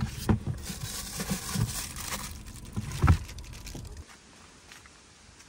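Rustling and crinkling with a few scattered knocks, as of objects being handled, the loudest knock about three seconds in; it stops about four seconds in.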